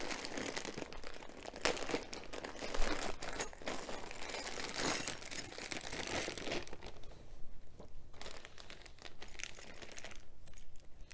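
Packaging crinkling and rustling as it is opened and handled, with small crackles and tears, busy for about the first seven seconds and sparser after that.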